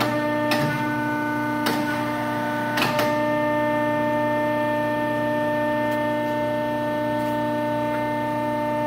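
150-ton Pacific hydraulic press idling between strokes, its pump motor running with a steady hum of several fixed tones while the ram rests at the top. A few short clicks fall in the first three seconds.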